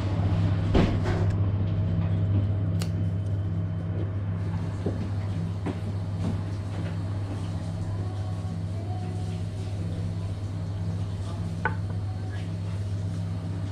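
A steady low mechanical hum, with a few light clicks and knocks of chopsticks and tableware against a ceramic bowl: about a second in, near three seconds and near twelve seconds.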